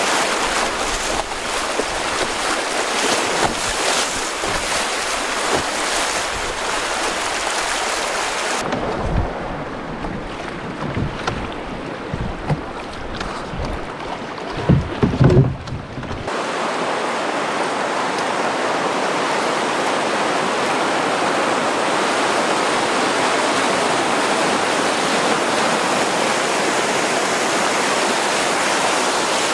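Rushing river current, a splashy hiss of moving water. Partway through it turns muffled for several seconds under low thumps, with a few louder knocks just before the steady rush of water returns.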